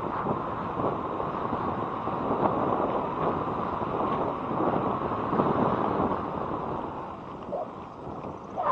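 Wind rushing over a helmet-mounted action camera's microphone on a moving electric scooter, a steady fluctuating noise that eases near the end, where a couple of short pitched sounds are heard.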